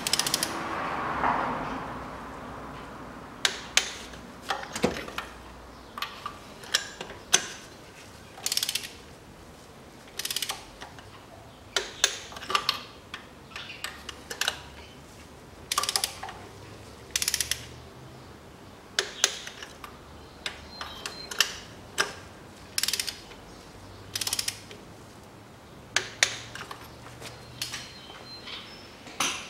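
Ratchet and torque wrench clicking in short irregular bursts as spark plugs are tightened to a 25 N·m setting.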